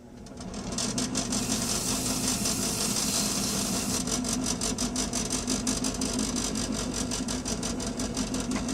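Drill press running with a nylon abrasive wheel in the chuck, scrubbing rust off a steel adjustable-wrench part. The sound builds over the first second into a steady motor hum under a dense, scratchy hiss.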